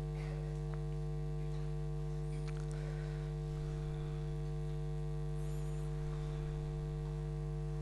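Steady electrical mains hum from the microphone and sound system: a low, unchanging buzz with a ladder of higher overtones, with no speech over it.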